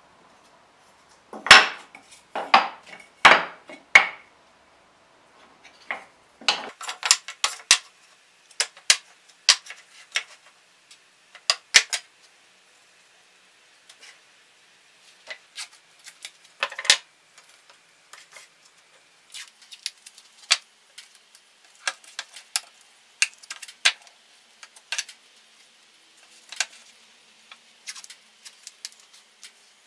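Small pieces of pallet-wood board being set down, shifted and knocked together on a wooden workbench. A few loud knocks come about one to four seconds in, followed by scattered lighter taps and clicks.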